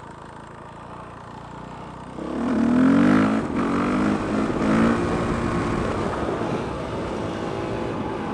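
Motorcycle engine running low for a couple of seconds, then revving up and pulling away about two seconds in, its pitch climbing and dropping back a few times as it shifts up through the gears before settling into steady running.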